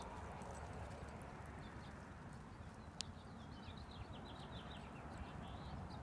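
A songbird singing a quick series of short, high, downward-sliding notes, starting about halfway through, over a faint steady outdoor background. A single sharp click about halfway through.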